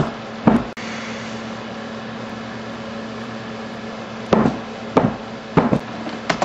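Sharp knocks on a hard surface: two close together at the start, then four or five more spaced about half a second apart from about four seconds in, over a steady low electrical hum.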